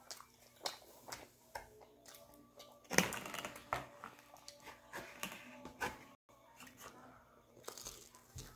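Close-up eating sounds of a man chewing a Pizza Hut P'Zone, a baked pizza turnover: a run of short, crisp clicks and wet mouth smacks, with a louder, longer crackle about three seconds in. The sound cuts out for a moment just after six seconds.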